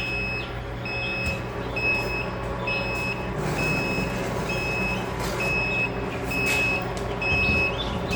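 Egg incubator alarm beeping, one high steady beep about once a second, because the humidity is off with the incubator opened up.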